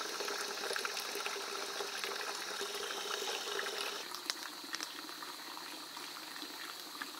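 Steady rush of running water. It drops in level about four seconds in, where a few light clicks are heard.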